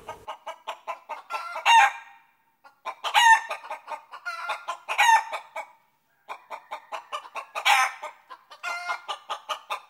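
A chicken clucking in quick runs, broken about four times by a louder, drawn-out squawk.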